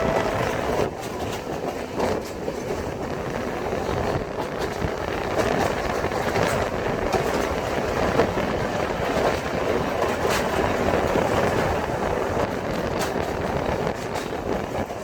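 Train running on the rails: a steady rumble with scattered sharp clacks of the wheels over the track.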